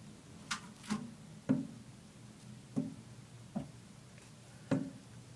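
Half a dozen light taps and knocks at uneven intervals, close to the microphone, as the phone is jostled in the cage.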